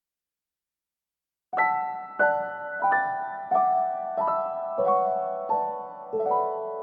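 Background music: after about a second and a half of silence, a slow melody of single struck notes, each fading away, about one every two-thirds of a second.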